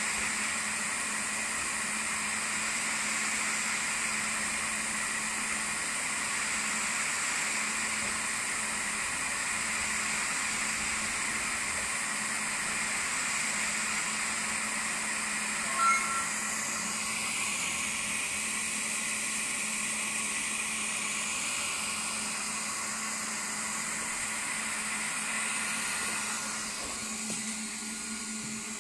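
CNC laser engraver running, a steady mechanical whir. A short high beep sounds about halfway through.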